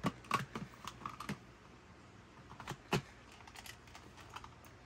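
Light plastic clicks and knocks from a Dyson V6 handheld vacuum's body being handled on the bench. There are several in the first second or so and a sharper knock about three seconds in.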